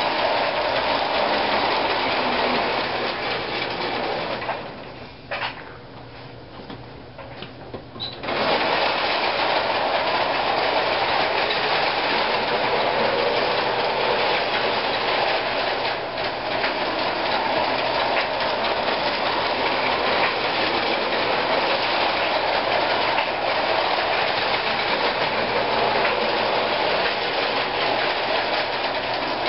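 Marx #490 toy locomotive running on O-27 three-rail track: its electric motor whirs and its wheels rattle along the rails in a steady mechanical clatter. About five seconds in the running sound drops away for some four seconds, then comes back suddenly at full level.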